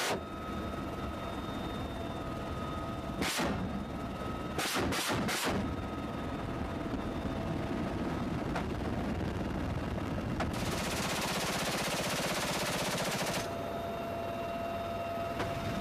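Weapons fire from a UH-1Y helicopter in flight, over the helicopter's steady rumble: one sharp shot a little over three seconds in, three more in quick succession about two seconds later, then about three seconds of continuous machine-gun fire that cuts off suddenly.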